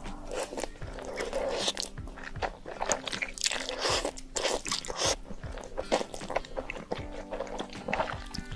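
Close-miked eating: a person biting and chewing crunchy food, with many irregular crackling crunches and wet mouth noises.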